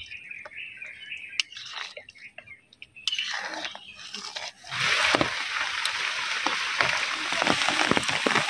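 Hot oil in a cooking pan sizzling and crackling. It starts as a faint sizzle, grows louder about three seconds in, then jumps past halfway to a loud, steady sizzle with many sharp pops.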